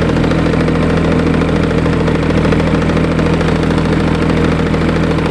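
Kubota D722 three-cylinder diesel engine of a TG1860 ride-on tractor running at a steady speed.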